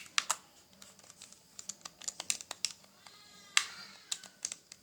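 Buttons on an unplugged game controller being clicked and pressed at random, a string of light, irregular plastic clicks.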